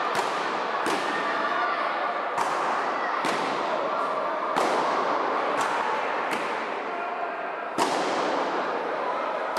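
Sharp bangs echoing through a large sports hall, roughly one a second at uneven intervals, over the chatter of a crowd.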